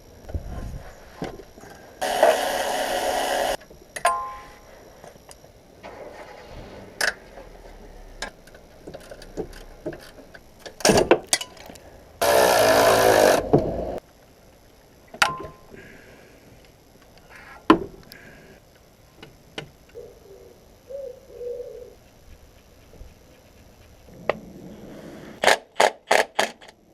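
A power tool runs in two bursts of about a second and a half each, with scattered metallic clicks and knocks of tools and car parts between them and a quick run of clicks near the end, during work on a clutch replacement.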